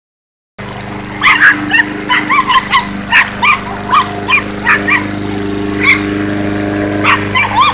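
A chihuahua barking and yipping rapidly, short high barks about twice a second with a brief lull near the end, over a lawnmower engine running steadily.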